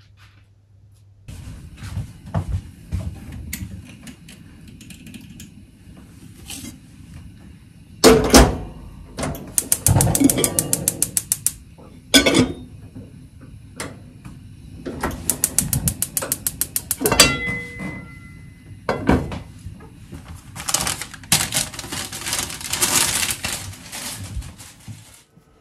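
Kitchen cooking sounds as pans are set on the stove to reheat food: knocks and clatters of pans and lids, two runs of rapid, even clicking a few seconds each, then a hissing sizzle near the end.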